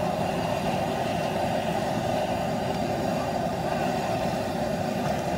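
Propane burner under a crawfish-boil pot, a steady rushing noise.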